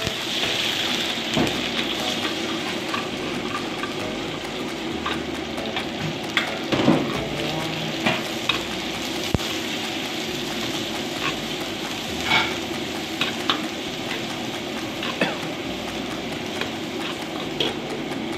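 Garlic and sliced onions sizzling in hot oil in a steel wok, with a metal ladle stirring and scraping against the pan in scattered clinks.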